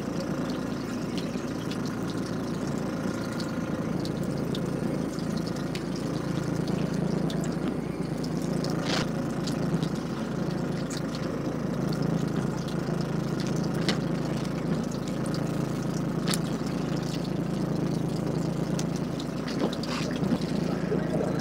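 Fishing boat's engine running steadily under a wash of trickling water, with a few light clicks from handling the tackle.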